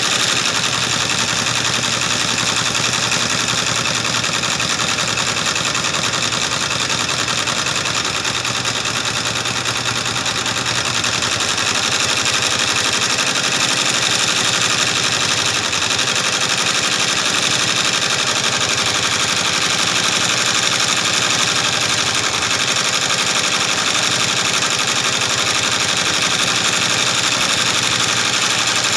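Commercial multi-needle embroidery machine running, its needle stitching at a steady, rapid, even rate.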